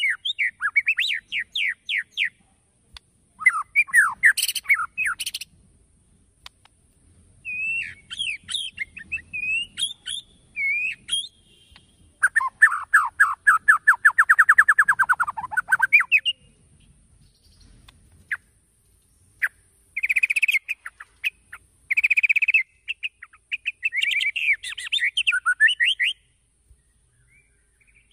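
White-rumped shama singing in separate phrases with pauses between: quick sweeping whistles, a long, fast, falling trill of about three and a half seconds near the middle, and short chattering bursts later on.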